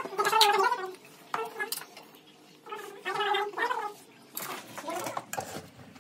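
Metal spoon clinking and scraping against a stainless steel bowl while stirring a chopped chickpea and vegetable mix, with short sharp ticks scattered through. A person's voice is heard twice, briefly at the start and again about three seconds in.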